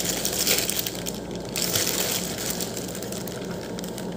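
Plastic courier pouch crinkling in irregular rustles as the parcel wrapped in it is handled and turned over.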